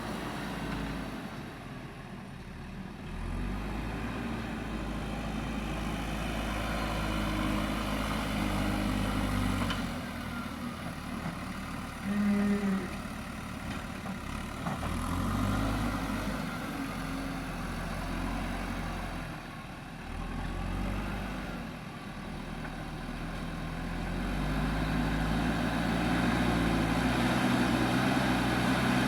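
Diesel engine of a JCB 3DX backhoe loader working, rising under load and dropping back several times, and loudest near the end. A short, loud tonal note sounds once, about twelve seconds in.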